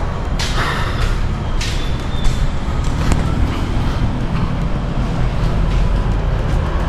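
Street traffic noise: a steady low rumble of passing road vehicles, with a few brief soft noises over it.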